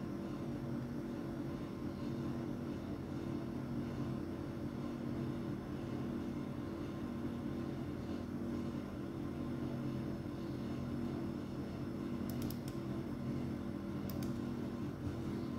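Steady low mechanical hum made of several even tones, the kind of sound a fan or appliance motor makes running in a small room. Near the end come two brief high-pitched chirps.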